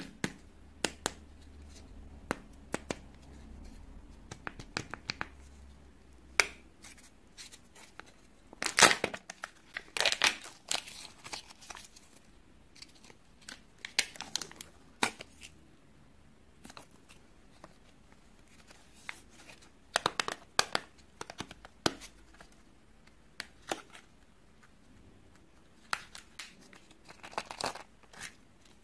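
Hands crinkling and tearing a thin wrapper and handling a plastic Kinder Joy toy capsule, with a string of short rustles and sharp plastic clicks as the capsule is worked open. The loudest bursts come about a third of the way in.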